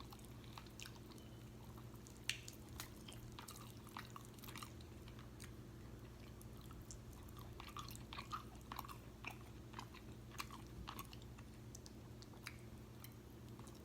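Close-miked chewing of food, wet mouth sounds with scattered small crunches and smacks at an uneven pace.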